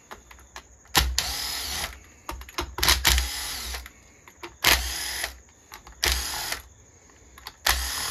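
A cordless power driver run in short bursts, about five, each under a second long, with its motor pitch changing inside each burst and small clicks in between, backing out chainsaw crankcase bolts.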